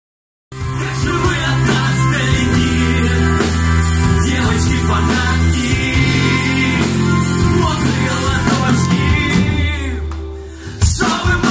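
Live rock band playing through a PA: acoustic guitar, drum kit and a singer on the microphone. The music cuts in suddenly about half a second in and dips briefly near the end before coming back at full level.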